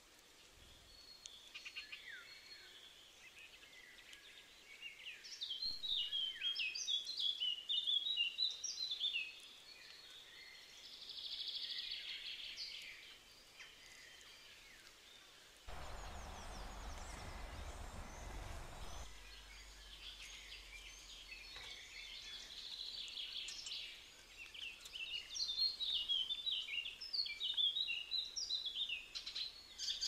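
Small songbirds singing and calling, with two bursts of rapid, varied high song phrases, one a few seconds in and another near the end. About halfway through, a low noise starts and stops abruptly after about three seconds.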